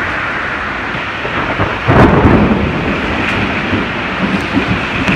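Heavy rain and strong wind of a severe thunderstorm: a dense, steady rushing, with a louder surge about two seconds in.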